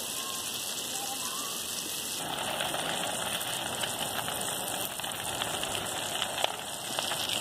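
Outdoor fire burning through dry grass and weeds and a wooden fence: a steady hissing rush, with denser crackling from about two seconds in.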